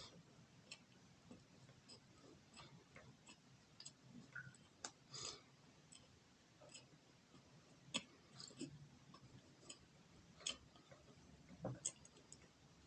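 Faint, irregular small clicks and ticks, a dozen or so spread over several seconds, against near silence.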